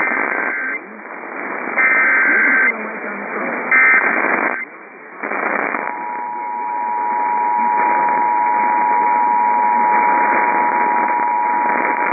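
Emergency Alert System broadcast received over radio with steady static hiss: three short SAME header data bursts about a second apart, then, about six seconds in, the steady two-tone EAS attention signal that announces a new alert.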